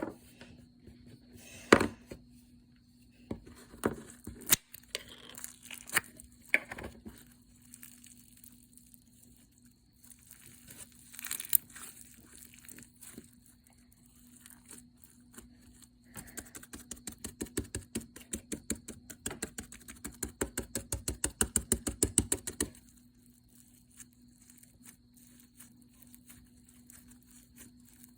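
Slime being squeezed and poked by hand, giving sticky popping and crackling clicks. Scattered pops come first, then a quick, steady run of pops for several seconds past the middle.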